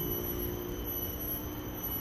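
Steady low rumble and hiss of traffic on a nearby main road, with faint steady high-pitched tones above it.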